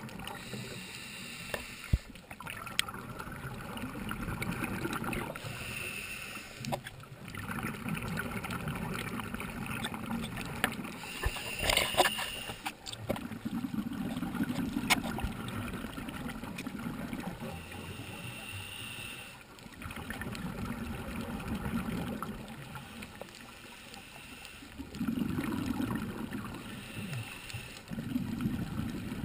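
Scuba diver breathing through a regulator underwater: a short hiss on each inhale, then a longer rumble of exhaust bubbles on each exhale, in slow cycles about six to seven seconds apart.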